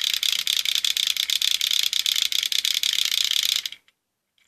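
Small battery-powered motor of a home-made Lego alarm running, its spinning part clattering rapidly against the Lego bricks at about ten clicks a second. The clatter cuts off about four seconds in and starts again right at the end.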